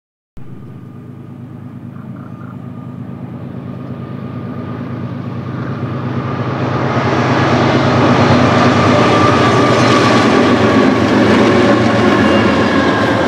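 Westbound BNSF freight train with diesel locomotives approaching. The engine drone and rail noise grow steadily louder for about seven seconds, then hold steady and loud as the train draws close.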